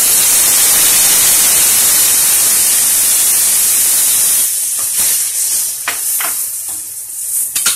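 Wet tomato-and-spice paste hitting hot oil in a kadhai: a loud sizzle that starts suddenly, holds for about four and a half seconds, then dies down. After that a steel ladle clinks against the pan a few times as the paste is stirred.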